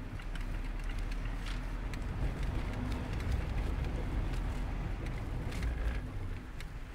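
Mazda ND Roadster being driven: engine running under a steady low rumble of road and wind noise, with scattered light clicks. It grows a little louder partway through and drops off near the end.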